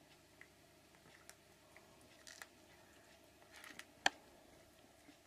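A cat biting and chewing a freshly killed mouse: faint, irregular crunching and small clicks, with one sharper click about four seconds in.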